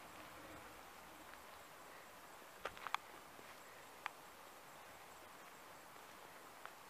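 Faint open-air ambience, a quiet steady hiss, with a few short sharp clicks: a quick cluster of three about three seconds in, a single one about a second later and a faint one near the end.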